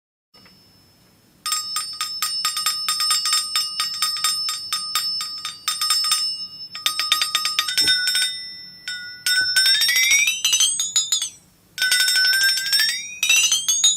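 Flexatone shaken so its beaters strike the spring-steel blade in a rapid ringing tremolo, first at a steady pitch, then with the pitch bent upward in two long rising glides.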